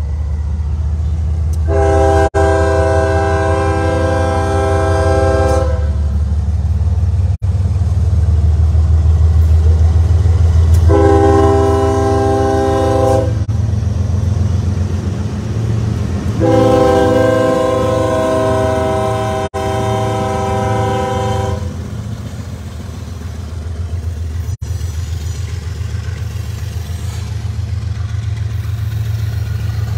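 CSX diesel freight locomotives' air horn sounds three blasts, long, short, then long, over the steady low rumble of the diesel engines as the train rolls by.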